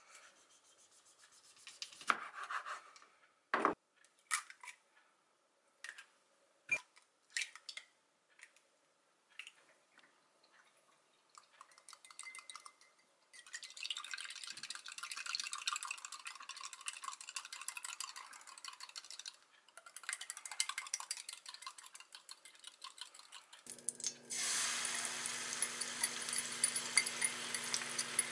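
A kitchen knife knocking on a wooden cutting board a few times while slicing tomatoes. A fork then whisks eggs briskly in a glass cup, a steady rapid clinking and scraping with a short pause. About 24 seconds in, beaten egg hits a hot frying pan with a little olive oil and sizzles loudly over a steady low hum.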